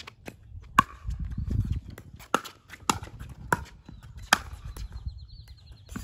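A fast pickleball rally: sharp hollow pops of paddles striking the plastic ball, about half a dozen, irregularly spaced, with lighter ticks of the ball bouncing on the hard court. A low rumble comes about a second in, and a faint high trill near the end.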